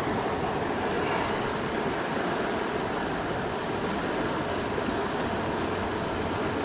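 Steady rush of fast-moving creek water.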